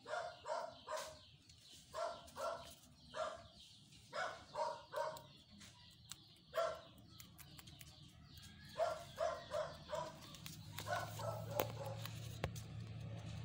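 A dog barking repeatedly, short barks in twos and threes with pauses between. A low steady hum comes in about ten seconds in.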